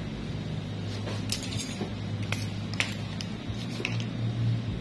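Small stainless nail nipper snipping at a toenail: about half a dozen short, sharp metallic clicks starting about a second in, over a steady low hum.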